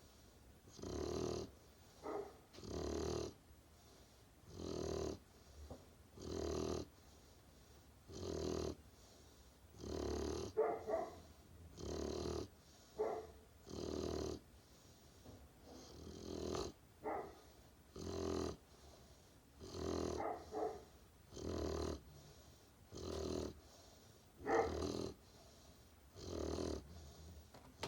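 Great Pyrenees puppy snoring in its sleep, one snore about every two seconds. Several breaths carry a thin, squeaky, wavering note.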